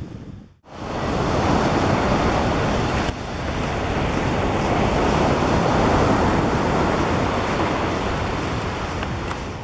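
Steady rush of surf and wind buffeting the microphone, with the sound dropping out briefly about half a second in.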